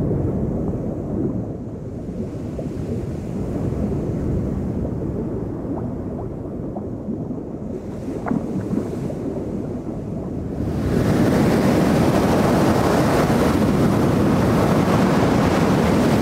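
Sea heard underwater as a low, muffled rushing. About eleven seconds in it gives way to the loud, steady noise of heavy storm surf breaking on rocks.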